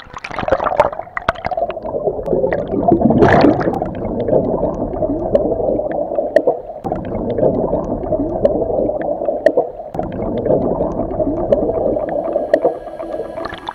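Underwater bubbling and churning picked up by a submerged camera: a dense rush of air bubbles swirling past, muffled, with scattered sharp ticks. Louder surges come just after the start and about three seconds in.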